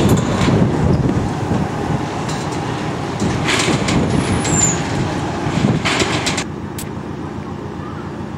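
Narrow-gauge diesel locomotive's engine running as it moves off along the track, with several metallic clanks and a brief high squeal from the running gear on the rails. The engine sound drops away about six seconds in as the locomotive pulls away.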